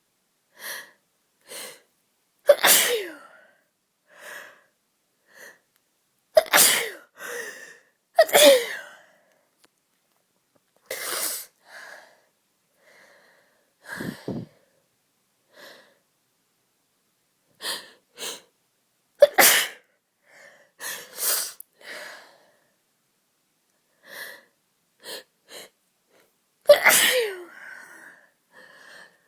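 A person with a bad cold sneezing over and over: about seven loud sneezes, with short, quieter catches of breath between them.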